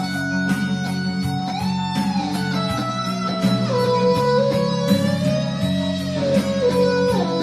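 Electric guitar playing a slow lead melody with bent and sliding notes, over a backing of low chords and a steady beat.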